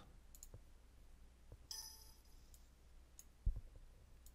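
A few faint computer mouse clicks, the strongest about three and a half seconds in, with a brief faint ringing sound about two seconds in.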